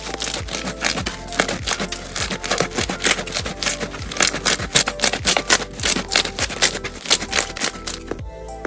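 Crunchy slime being squeezed and pressed by hand, giving rapid crackling and popping clicks that thin out near the end. Soft background music plays underneath.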